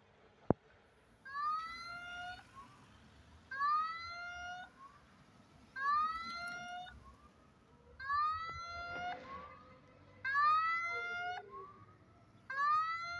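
Level crossing's electronic warning signal sounding for an approaching train. It repeats about every two and a quarter seconds: a rising tone about a second long, then a short lower note. A sharp click comes about half a second in.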